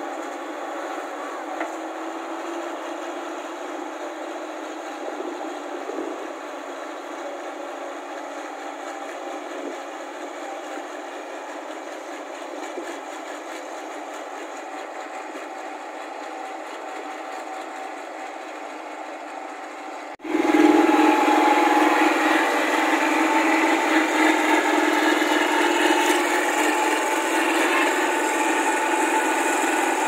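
New Holland 8060 combine harvester's diesel engine running with a steady mechanical hum. About twenty seconds in, the sound cuts abruptly to a louder, closer engine hum that holds steady.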